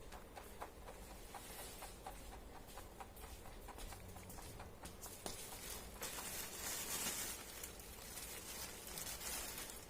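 Pet rabbit chewing its food, a run of small crisp crunches at about three a second, with a soft rustle of the food about six seconds in.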